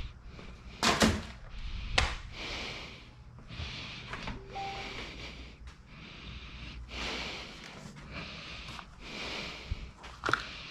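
Knocks and clatters of tools and parts being handled during a motorcycle oil change, with rustling between them: sharp knocks about a second and two seconds in, and another near the end.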